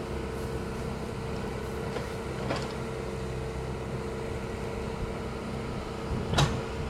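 Backhoe's diesel engine running steadily, with a faint knock about two and a half seconds in and a louder sharp knock near the end.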